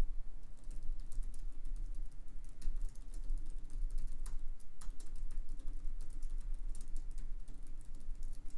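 Typing on a computer keyboard: a steady run of irregular key clicks as a sentence is typed out.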